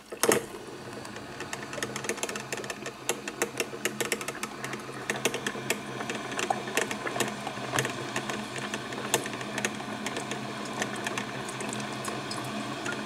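Black+Decker drip coffee maker brewing: irregular popping and sputtering crackles over a steady low hum as the heater pushes water through. A single loud knock comes right at the start.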